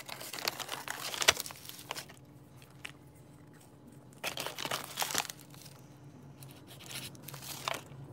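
Paper banknotes crinkling as hands fold and handle them, in three bursts: over the first two seconds, again around four to five seconds in, and briefly near the end.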